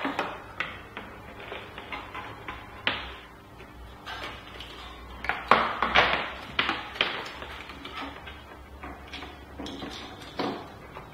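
Irregular small plastic clicks and taps as Cat5 cable ends with RJ45 connectors are handled and fitted into a plastic mounting strip, with a few louder clicks about halfway through.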